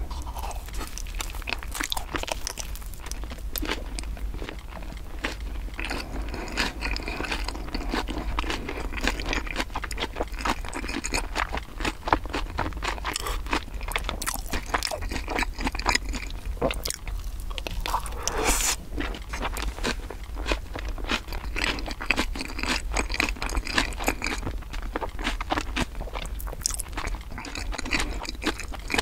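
Close-miked chewing of a soft corn bread filled with sweet corn and cream, a dense stream of small wet clicks, smacks and light crunches.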